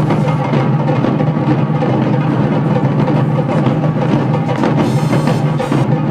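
Background music driven by drums and percussion, with a steady beat.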